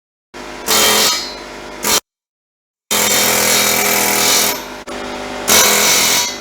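Pneumatic air hammer chipping welding slag (flux) out of stick welds on steel tubing: a loud rattling buzz in several runs of one to two seconds, each starting and stopping abruptly with dead silence between.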